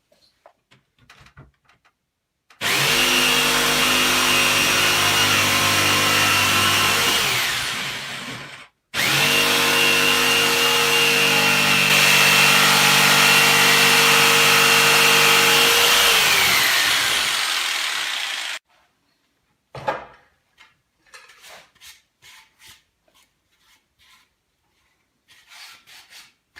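An electric power tool's motor runs steadily twice, about six seconds and then about nine seconds. Each time it slows with a falling pitch as it is switched off. A few light clicks and taps follow.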